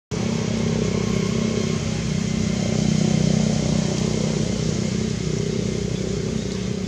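A motor engine running steadily, giving a low, even hum.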